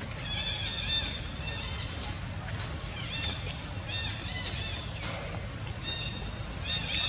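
Series of short, high-pitched chirping animal calls, several a second in bursts with short pauses, over a steady low rumble.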